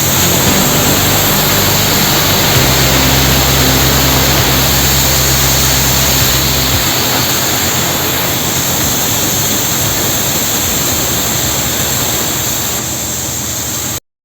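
Loud, steady hissing rush of a CNC cutting machine's torch cutting steel plate, over a low hum that shifts pitch twice. It cuts off abruptly near the end.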